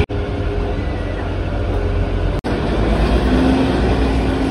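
Kalka–Shimla narrow-gauge toy train running, a steady loud rumble of wheels and engine heard from a carriage window as the train enters a tunnel. The sound breaks off for an instant near the start and again about two and a half seconds in.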